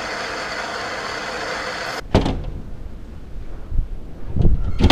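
Steady radio static hiss from a ghost box during a spirit-box session, cutting off suddenly about two seconds in. Then a low rumble with a few knocks and thumps, the loudest near the end.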